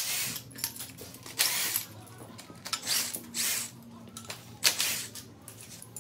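Cordless power tool run in several short bursts, spinning out the bolts that hold an engine to an engine stand's mounting bracket.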